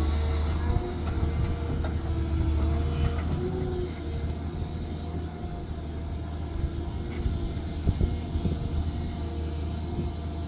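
Cat M318D wheeled excavator running: a steady low diesel drone with a whining tone that wavers in pitch over the first few seconds, then holds steady. There is a sharp knock about eight seconds in.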